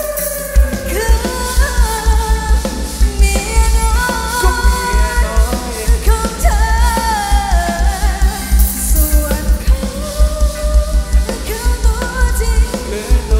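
Live Thai ramwong band played loud through a PA: a singer's melody over a heavy, steady bass beat that comes in about half a second in.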